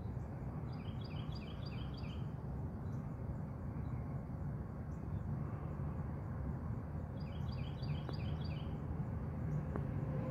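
A songbird sings twice, each time a quick run of about five repeated two-note phrases, over a steady low rumble.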